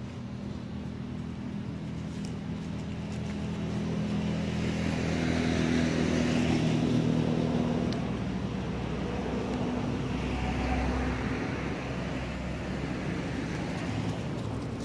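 Motor vehicle engine running close by, its sound swelling as it passes about halfway through, with a smaller second swell a few seconds later.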